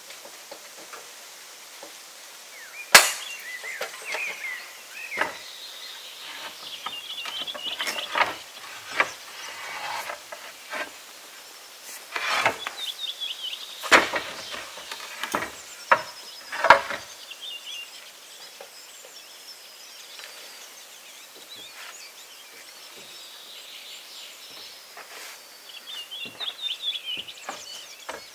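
Irregular sharp knocks of hand tools striking wood, about ten of them, the loudest about three seconds in and a cluster in the middle, with birds chirping between them.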